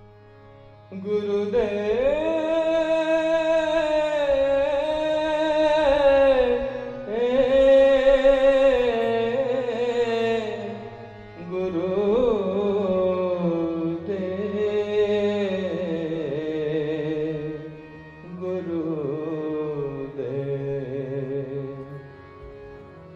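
Devotional singing as background music: one voice sings long, sliding phrases, each a few seconds long with short breaks between, over a steady drone.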